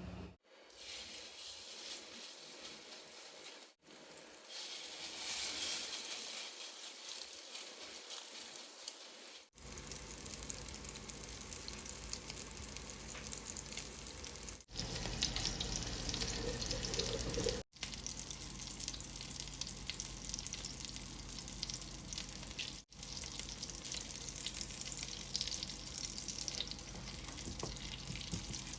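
Food frying in oil in a pan, a steady sizzle with crackling, broken by a few brief dropouts.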